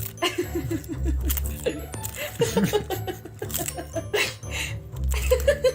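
Background music with a heavy bass line and short, quickly repeated notes.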